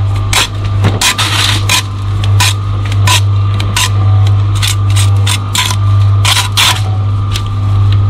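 Hand tools scraping and clicking on brick and mortar in quick, irregular strokes, with a few longer scrapes, over a steady low hum.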